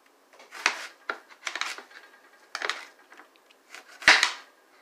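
Knife slicing through a cucumber onto a plate: several separate, unevenly spaced cuts, the loudest near the end.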